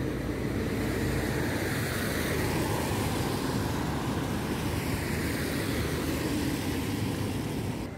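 Road traffic: cars driving past on a street, a steady rush of engine and tyre noise that drops away suddenly near the end.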